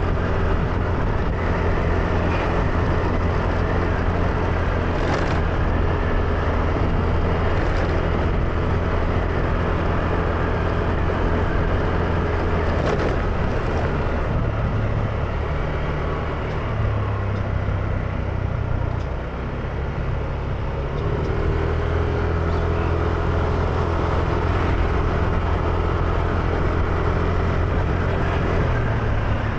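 Motor scooter engine running steadily while ridden, its note shifting and easing off briefly about two thirds of the way through before picking up again.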